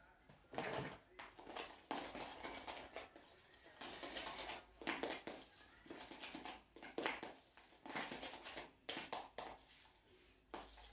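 Spoon scraping and stirring frosting in a small bowl in repeated, irregular strokes, mixing in yellow colouring.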